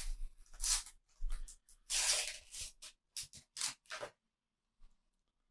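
A Panini sticker packet being torn open and the stickers handled: a run of short paper rustles with one longer tearing sound about two seconds in, stopping after about four seconds.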